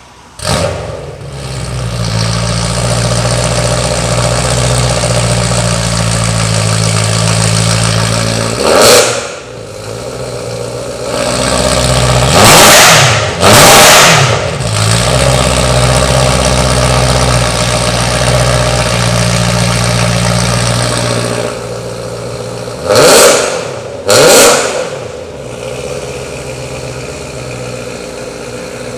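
BMW M3 engine through an Armytrix exhaust starting up about half a second in and settling into a high idle. It is revved sharply once, then twice in quick succession, then twice more, and settles to a quieter idle near the end.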